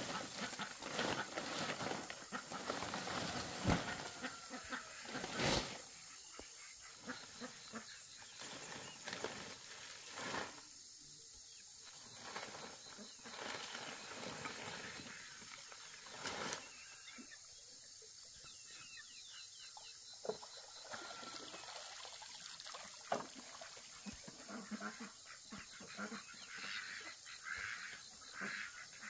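Dry palm-leaf thatch rustling and crackling as bundles of it are handled and dragged over the ground. A few sharp knocks of wood or bamboo fall among the rustling.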